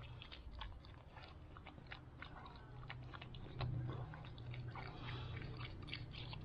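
A dog eating canned food hungrily: quiet chewing and licking, a run of small wet clicks and smacks.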